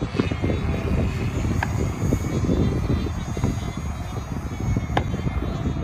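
Wind buffeting the microphone: a gusty, uneven low rumble, with a faint wavering high whine in the background.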